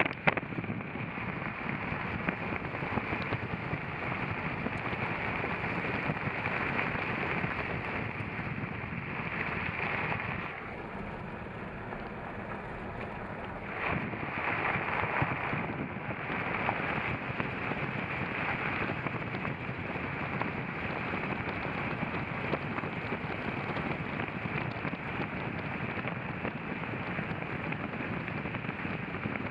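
Toyota 4x4 driving on an off-road trail: a steady rush of vehicle noise with wind buffeting the microphone. It eases for a few seconds about ten seconds in, then picks up again.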